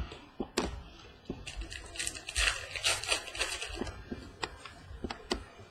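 Trading cards being handled: several light clicks and taps, with a rustling slide of cards against each other from about a second and a half in to about four seconds.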